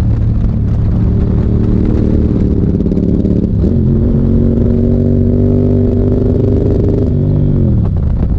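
Motorcycle engine running under way: its pitch steps up about three and a half seconds in, holds steady, then falls away near the end as the bike slows.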